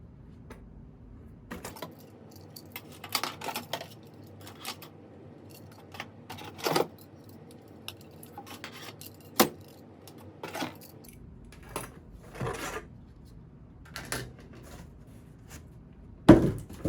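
Fire alarm parts being handled, taken out of and put into a box: irregular clicks, clatters and knocks with some rustling, the loudest knock near the end.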